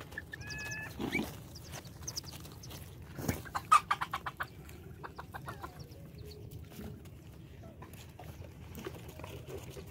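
A chicken clucking in a quick run of calls about three and a half seconds in, with a short higher call near the start and a weaker run of clucks a little later; a single knock comes just before the main run.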